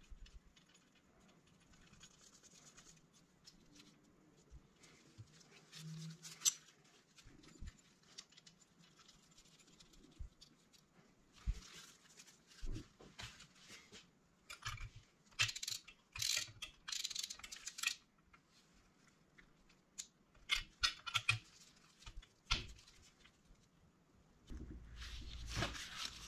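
Metal turbocharger parts handled with gloved hands: scattered faint clicks, taps and rustles as the wastegate actuator is fitted and its bolts are run in with a hand tool.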